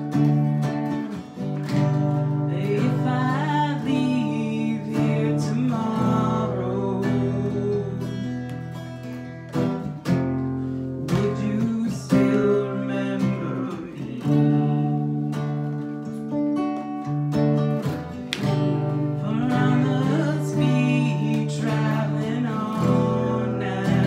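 Acoustic guitar strumming chords while a woman sings a slow melody into a microphone, with held, wavering notes.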